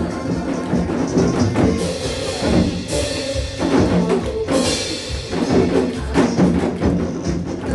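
Several janggu hourglass drums struck with sticks in an ensemble, playing rhythmic strokes along with a recorded trot song.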